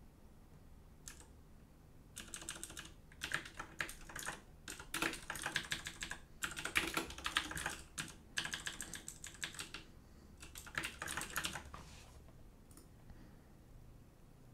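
Typing on a computer keyboard: rapid keystrokes in several bursts, starting about two seconds in and stopping about twelve seconds in, with a few lone key clicks either side.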